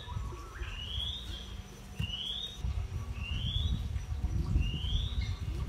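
A bird calling with a short rising whistle, repeated evenly about once a second, four times, over a low rumbling noise.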